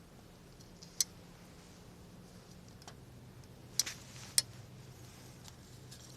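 Wood fire crackling, with sharp pops: one about a second in and two close together a little before the middle.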